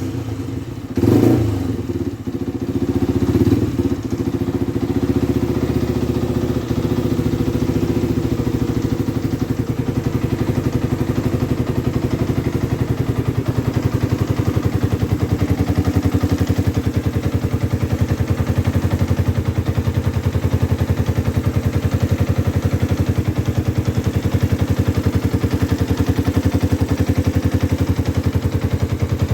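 Freshly rebuilt Yamaha 125 cc motorcycle engine running: two short revs in the first few seconds, then settling to a steady idle.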